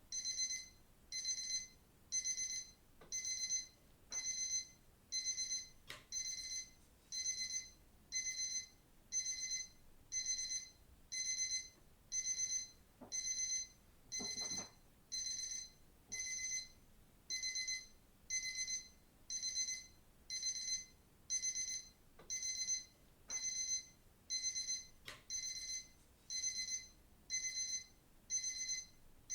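Digital watch alarm beeping: short bursts of high-pitched beeps, about one burst a second, repeating evenly.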